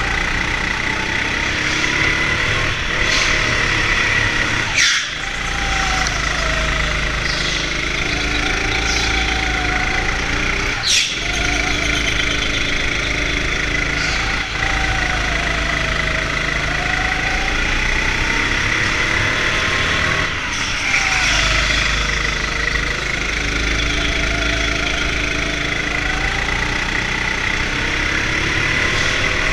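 Onboard sound of an indoor go-kart being driven around the track: the kart's motor runs continuously, its pitch rising and falling as it speeds up on the straights and slows for corners, over a steady low rumble. Two brief sharp knocks come about five and eleven seconds in.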